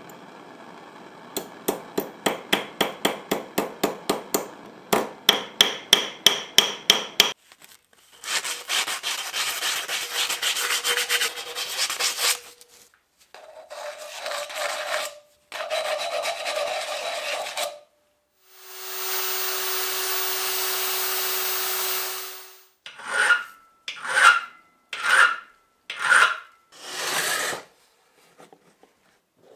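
A small hammer tapping a thin metal rod held against a steel bench vise, about three blows a second, the later blows harder. After that a file rasps on the metal in a series of strokes, one of them long and steady, and five short strokes near the end.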